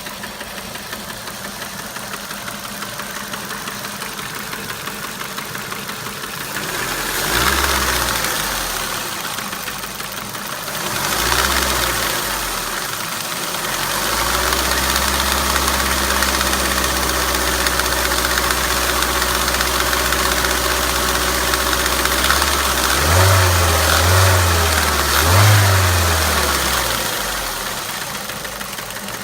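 Ford Mondeo's 1.8 Duratec HE four-cylinder petrol engine running with a knocking/tapping noise of unknown source. It idles, is revved up briefly twice, held at raised revs for several seconds, blipped twice more, then settles back to idle.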